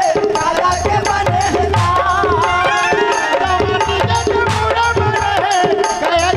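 Chhattisgarhi nacha folk music played live: hand-drum strokes with deep bass thumps keep a steady rhythm under a held melody line that bends in pitch, with no singing.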